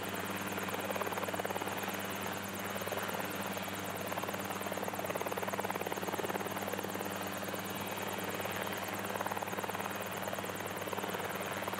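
Cicaré light helicopter running steadily on its ground flight-training rig, engine and turning rotor giving an even drone.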